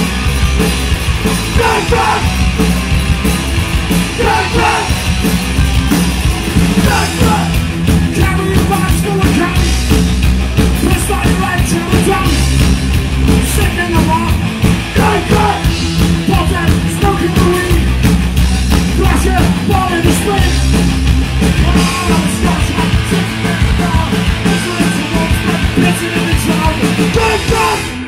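Punk rock band playing a song loud, with shouted singing over driving guitars, bass and drums; the song stops abruptly at the very end.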